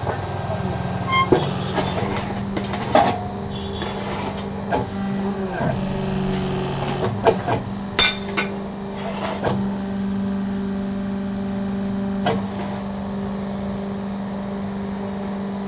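Fly ash brick-making machine's electric motor running with a steady hum, with irregular sharp metal knocks and clanks as the press is worked and struck with a hammer.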